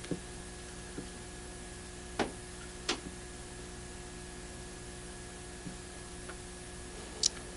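Steady background electrical hum with several faint, short taps and clicks, about five in all, from solder wire and the iron tip being worked on a small perfboard.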